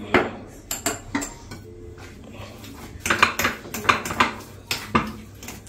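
Kitchen utensils and dishes clinking and knocking: a few sharp clinks in the first second, then a denser run of clinks about three seconds in and two more near the end.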